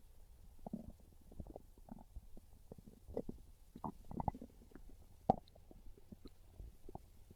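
Hungry human stomach growling and gurgling: a run of irregular bubbly gurgles and pops, with the sharpest pop a little past five seconds in.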